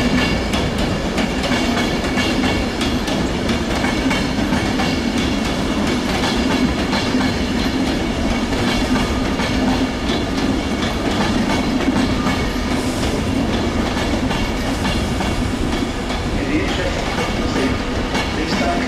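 Passenger train running past on the main line, wheels clattering over the rail joints with a steady rumble and hum that holds for the whole stretch.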